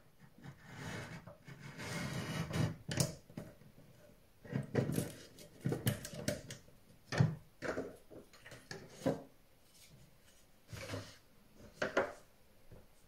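Paper trimmed with a craft knife drawn along a wooden ruler: a scraping cut for the first few seconds. Then a string of short knocks and rustles as the cut strip is pulled away and the ruler and paper are handled on a wooden table.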